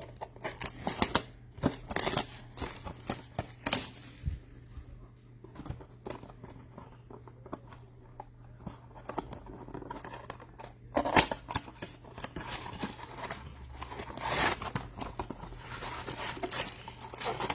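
A trading-card blaster box being opened by hand: plastic wrap and cardboard crinkling and tearing in irregular crackles, with a few louder bursts.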